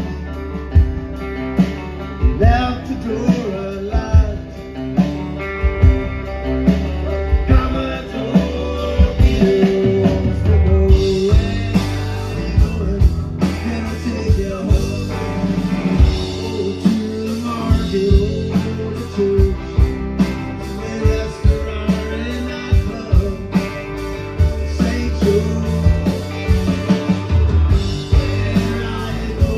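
A rock band playing live: acoustic guitar, electric guitar, electric bass and drums over a steady beat. The cymbals and treble get brighter about eleven seconds in.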